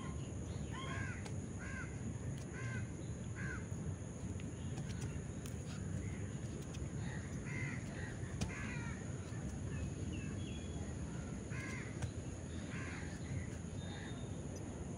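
Crows cawing, a quick run of about five caws in the first few seconds and scattered caws after, over steady low background noise.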